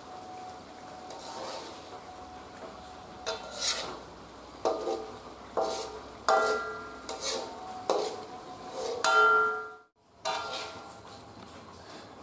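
A metal slotted spatula scrapes and clangs against a thin metal wok while stirring chicken in a sauce, over a faint simmer. About eight ringing metallic clangs start a few seconds in; the last and loudest rings longest and then cuts off abruptly.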